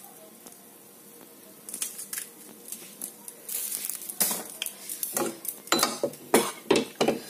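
Metal kitchen utensils and lids clinking and clattering beside the stove. It is quiet at first, then sharp knocks come more often in the second half.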